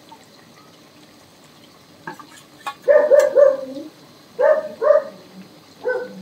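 A dog barking: three quick barks about three seconds in, two more about a second later, and a single bark near the end. Under them is the faint steady sizzle of chicken deep-frying in hot oil in an iron kadai.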